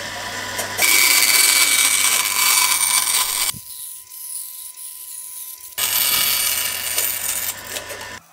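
Bandsaw running, its blade ripping a thin strip of wood along the fence over a steady motor hum. The cutting noise breaks off for about two seconds midway, then resumes.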